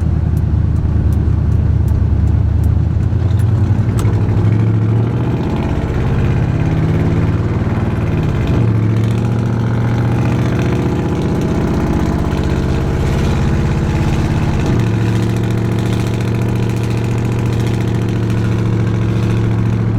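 Truck engine with an oversized aftermarket camshaft, idling with an even run of firing pulses. The idle speed shifts slightly a few times, about 5, 8 and 15 seconds in.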